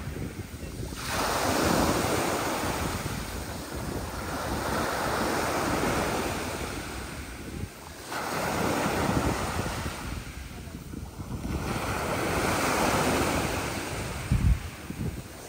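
Sea waves breaking and washing in a rough, building sea, surging about four times with wind buffeting the microphone. A short low thump comes near the end.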